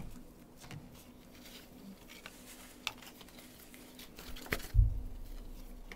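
Soft rustling and handling noise as a synthetic wig is pulled on over a wig cap and adjusted, with a few small clicks and one dull thump about five seconds in.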